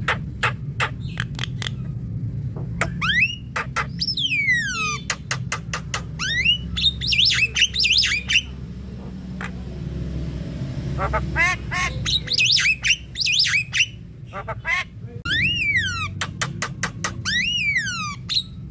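Javan myna singing a varied, continuous song of sharp clicks, harsh chattering runs and loud whistles that slide down in pitch.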